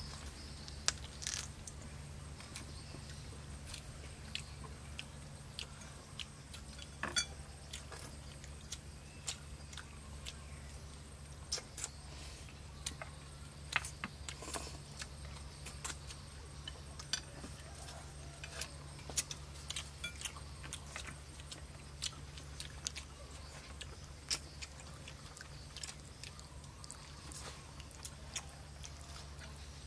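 Eating sounds: irregular small clicks and taps of chopsticks against ceramic bowls and chewing of noodles and fried chicken, over a steady low hum.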